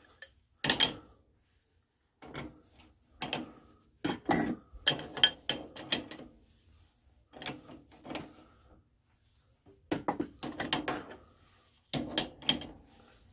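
Metal clinks and clunks from hand-threading on a lathe: a clamp is fitted to a tailstock die holder and turned by hand to run a 5/16-24 die onto a steel rod. The sounds come in short irregular groups of clicks with pauses between them.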